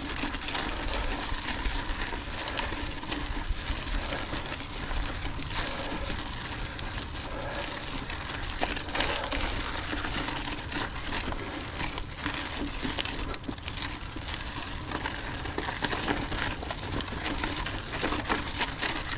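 Mountain bike climbing a rocky dirt trail: its Maxxis tyres crunch and crackle over gravel and rock, with small clicks and rattles from the bike over a steady low rumble.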